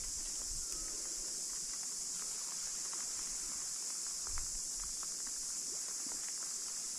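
Faint soft footsteps on wet sand under a steady high-pitched hiss.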